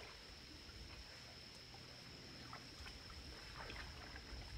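Near silence: faint outdoor night ambience with a steady, high, thin tone and a few soft rustles.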